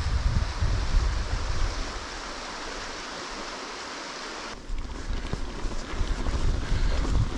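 Wind noise on the action camera's microphone while riding: a gusty low rumble that drops away for a couple of seconds, leaving a steady hiss, then comes back abruptly about four and a half seconds in.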